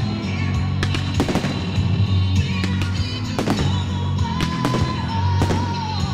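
Fireworks display set to loud music: sharp bangs and crackles of bursting shells, several in quick succession, over music with a heavy bass.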